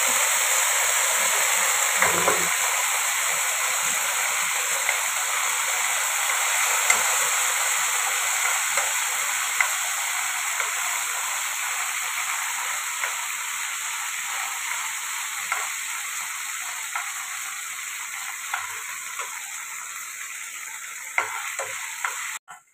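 Garlic, green and dried red chilies and curry leaves sizzling in hot oil in a nonstick frying pan, with scattered clicks of a metal spoon stirring against the pan. The sizzle slowly grows quieter and cuts off just before the end.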